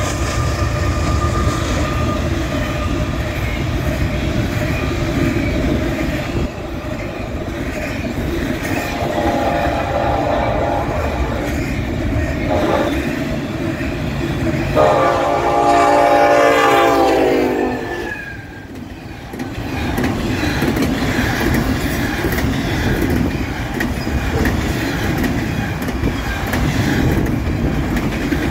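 Steady rumble and clickety-clack of a Union Pacific double-stack intermodal train rolling past close by. Over it, the air horn of an oncoming freight locomotive on the adjacent track sounds a shorter blast about nine seconds in, then a longer, louder one around fifteen seconds that drops in pitch as it ends.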